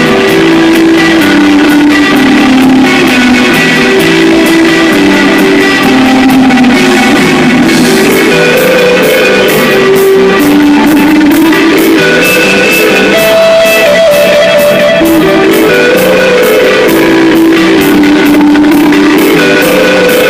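A rock band playing live: a melodic electric guitar line over drums, with the cymbal beat becoming steadier and more prominent about eight seconds in.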